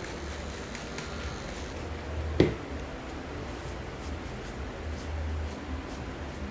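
One sharp knock about two and a half seconds in, over a steady low rumble.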